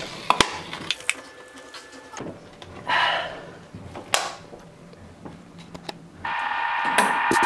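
A few light clicks and a short rustle of handling. About six seconds in, electronic music starts and grows louder.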